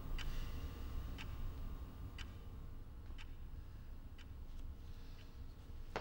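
Clock ticking steadily, one faint tick about every second, over a low steady room hum, with a sharper, louder click at the very end.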